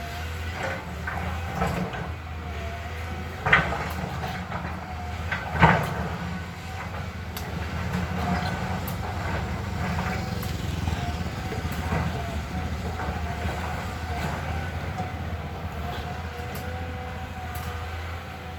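Caterpillar excavator's diesel engine running steadily, with a faint wavering whine above it and two sharp metallic clanks, about three and a half and five and a half seconds in.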